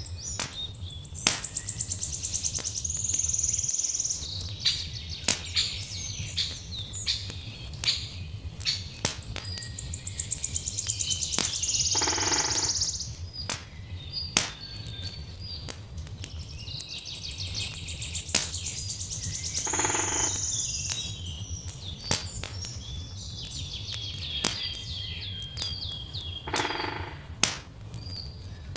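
Songbirds singing and chirping over a crackling log fire, with frequent sharp pops from the fire and a steady low rumble underneath. Three louder, harsher calls stand out near the middle and toward the end.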